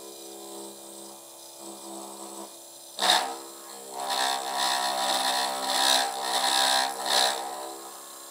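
High-speed milling spindle on a benchtop lathe, running with an end mill. About three seconds in the end mill bites into the metal workpiece with a sudden loud hit, then cuts with a loud, harsh noise until just before the end; at about 1 mm depth of cut the setup is struggling and chattering.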